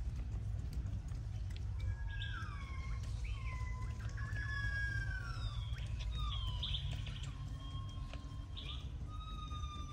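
Long-tailed macaques giving high, whistle-like coo calls, many of them overlapping, each gliding up and down over about a second.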